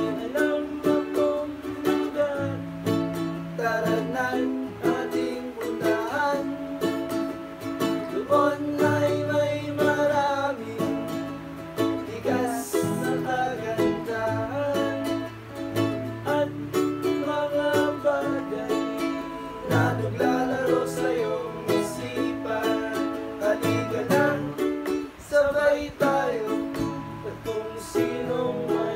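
A ukulele and an acoustic guitar strummed together, accompanying a sung acoustic pop song, with male voices singing along at times.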